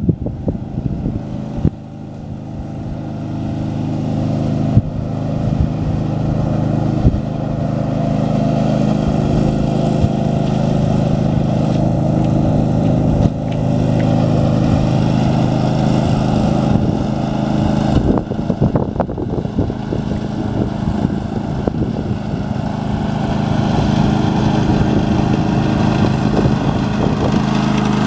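Husqvarna ride-on lawn mower running steadily while cutting grass, its engine growing louder as it approaches. A few sharp knocks stand out over the engine.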